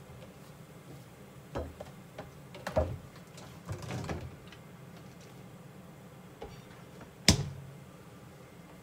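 A few scattered clicks and knocks over a low steady hum, the sharpest and loudest knock about seven seconds in.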